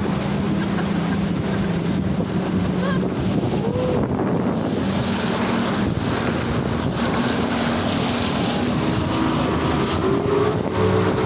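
Speedboat's engine running steadily under way, over rushing water and wind buffeting the microphone; a higher engine note comes in near the end.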